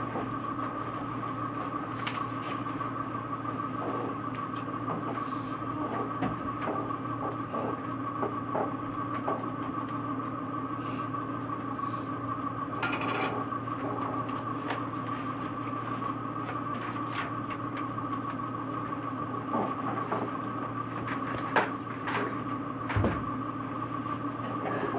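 Steady room hum with a low drone and a higher whine, with scattered small clicks and knocks over it and a sharper knock near the end.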